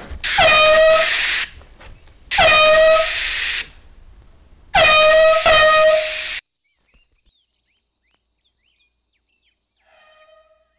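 Handheld canned air horn blown three times in long, loud blasts, each a little over a second, the pitch swooping down briefly at the start of each. It cuts off abruptly about six seconds in, leaving only a faint high hiss, and a faint blast of the same horn sounds near the end.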